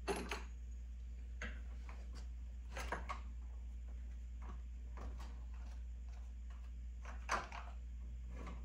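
Scattered clicks and knocks of a Snix four-stroke chainsaw being handled while its engine oil is checked at the filler cap. The loudest knock comes about seven seconds in, over a steady low hum.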